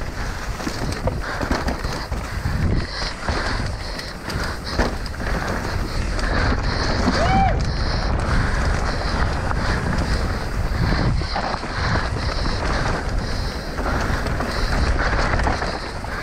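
Wind buffeting the microphone over the rumble and rattle of a mountain bike descending a rough, rocky trail at race speed. A short squeal that rises and falls comes about seven seconds in.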